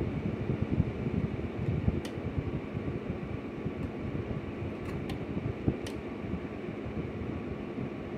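Steady fan-like whir with a low hum from a CB radio setup while a Thumper 800 MOSFET linear amplifier is keyed into a dummy load with an unmodulated carrier (a dead key). A few faint clicks sound through it.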